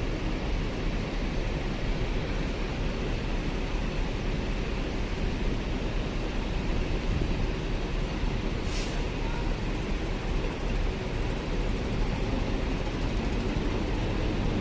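Large diesel coach engine running as the bus sets off, a steady low rumble. About nine seconds in there is one short, sharp hiss of released air.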